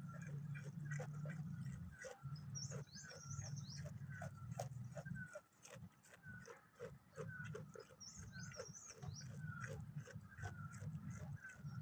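Farmyard animal and bird calls: short falling chirps repeat about once or twice a second, and a high twittering call comes twice, over a low rumble that drops in and out.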